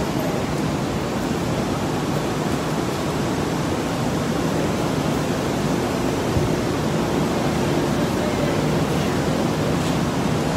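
Steady rushing ambience of an underground train station platform with a faint low hum under it. No single event stands out.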